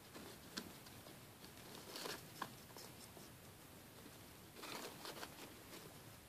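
Faint rustling and crinkling of hay and paper as guinea pigs shuffle about in their bedding, with a few small sharp clicks and a busier patch of rustling near the end.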